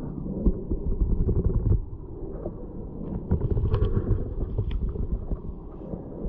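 Muffled underwater sound picked up by a submerged camera in a flowing stream: a low rumble of moving water with scattered clicks and crackles, swelling louder twice.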